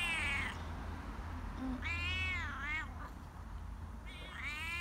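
A ginger-and-white cat meowing repeatedly: three drawn-out meows that rise and fall in pitch, about two seconds apart.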